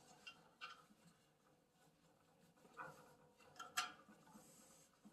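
Faint rubbing and a few light taps as a rubber bandsaw tire is worked into the groove of the wheel by hand; the sharpest tap comes near the end.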